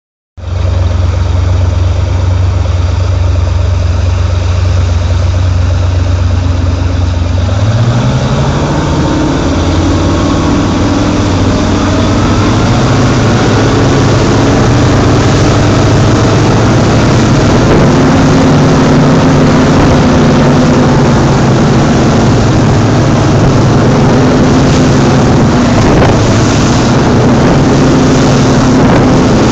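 Cigarette-style offshore powerboat's engines running at low speed with a steady low tone, then opened up about a quarter of the way in, the engine note rising as the boat speeds up. It then runs hard at speed with the rush of spray, churning wake and wind.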